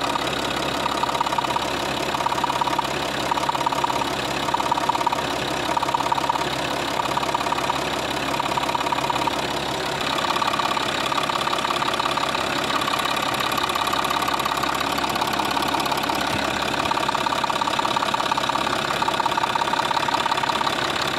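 Citroën C6's 2.7 V6 HDi diesel engine (UHZ/DT17TED4) idling steadily, with a subtle tapping knock in the injection, which the owner suspects is a slightly sticking injector. A pulsing note runs through the idle, about once a second in the first half, then steadier after about ten seconds.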